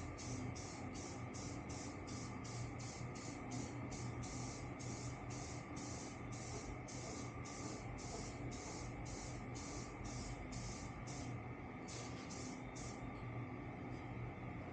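Aerosol spray paint can spraying a coat onto a switch panel in short, quick bursts, about three a second. There is a brief break near the end, and a faint steady low hum runs underneath.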